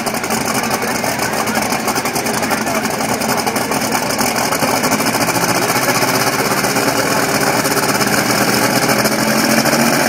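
Modified two-wheel-drive pulling truck's engine idling, hooked to the weight sled before its pull, with a steady, rapid exhaust beat that grows slightly louder toward the end.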